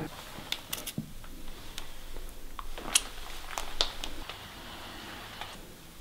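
A string of short, faint clicks and small knocks, irregularly spaced, over a quiet room background.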